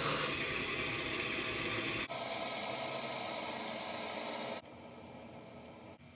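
Fidget spinner spinning flat on a tabletop, its ball bearing giving a steady whir; the sound shifts abruptly about two seconds in and drops to a much fainter hum a couple of seconds before the end.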